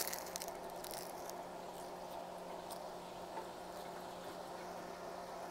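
Hot oil bubbling steadily inside a closed electric deep fryer, with a steady low hum and a few light crackles in the first second.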